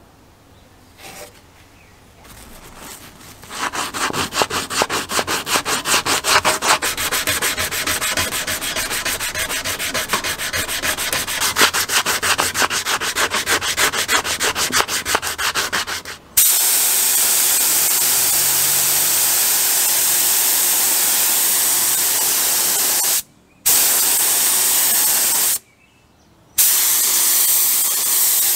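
Sandpaper rubbed by hand over body filler on a steel chain hoist end cover, in fast, even back-and-forth strokes. About sixteen seconds in it gives way to the louder steady hiss of paint being sprayed, which stops briefly twice near the end.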